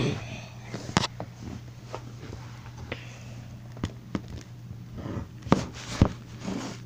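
Handling noise from a phone being moved about at close range: a series of scattered knocks and bumps, the loudest two near the end, over a steady low hum.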